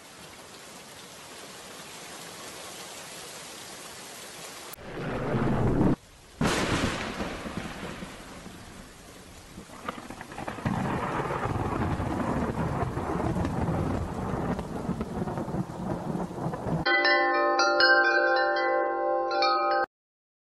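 Thunderstorm sound effect: a steady hiss of rain, then rolling thunder about five seconds in and again from about ten seconds on. Near the end it gives way to a few seconds of chiming tones that cut off abruptly.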